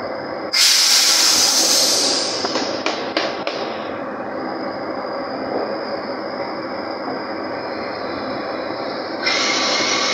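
Drilling rig floor machinery running with a steady mechanical din. A loud hiss starts sharply about half a second in and fades over the next few seconds, with a few metal knocks, and another hiss sets in near the end.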